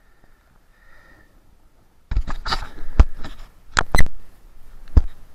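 Close handling noise: faint for about two seconds, then a run of sharp knocks and scuffs as a freshly landed sea bass and lure are handled on wet rock.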